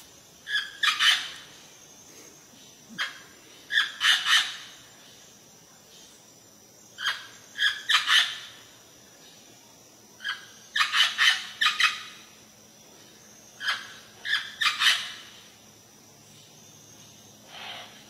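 Green Amazon parrot giving harsh squawking calls in short runs of two to five notes, a run about every three seconds, five runs in all with a fainter single call near the end.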